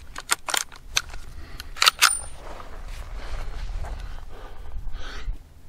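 Sharp metallic clicks and clacks of a Ruger 10/22 Takedown .22 rifle being handled and readied to fire, a quick string of them in the first two seconds, then fainter handling noise.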